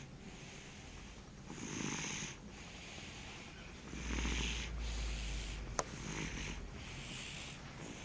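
A congested, sick baby snoring in her sleep: a run of noisy, rasping breaths, each about a second long, with a single sharp click a little before 6 seconds in.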